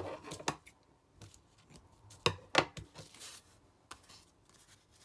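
Hand stitching on paper: thread being pulled through and the paper handled, with rustling and a few sharp clicks, the two loudest close together about two seconds in.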